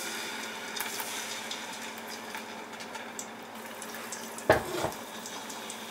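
Ground shallot, green chilli, ginger and garlic paste sizzling as it drops into hot groundnut oil and ghee in an aluminium pot: a steady frying hiss with fine crackling. About four and a half seconds in comes a brief knock.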